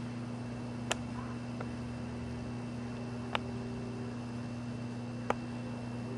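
Small mechanism of a kinetic prayer-wheel sculpture powered by a zinc–copper seawater battery, giving a sharp click three times, about two seconds apart. A steady low hum runs underneath.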